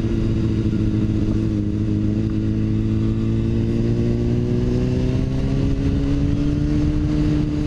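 Sport bike's inline-four engine running at steady revs while riding, its pitch creeping slowly upward through the second half as it gains speed.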